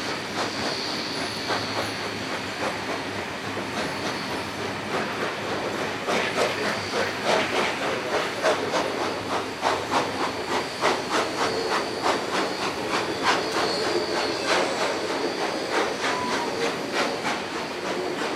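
Steam-hauled passenger train heard from on board a carriage, its wheels clattering over rail joints and points on a curve. The clatter turns into a rhythmic clicking about twice a second from about six seconds in, with a thin high wheel squeal at the start and again past the middle.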